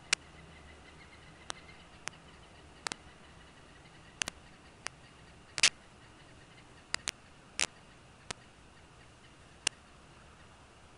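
Irregular sharp clicks, about a dozen spread unevenly, over a faint steady hiss.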